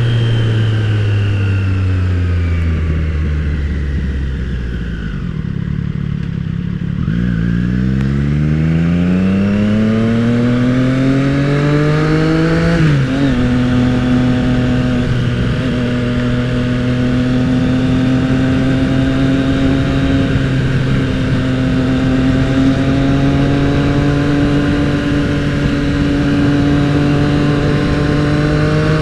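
Triumph motorcycle engine slowing down, its pitch falling for several seconds, then pulling hard up through the revs, with a gear change about 13 seconds in and steady cruising after that. Wind rush runs underneath.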